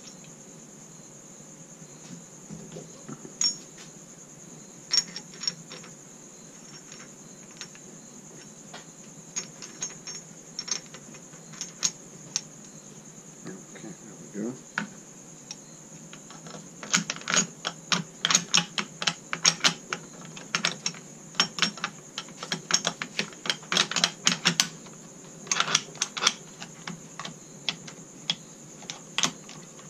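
Light metallic clicks and rattles of SKS rifle parts being handled and fitted during reassembly. They come scattered at first, then in a dense run of rapid clicks for several seconds past the middle.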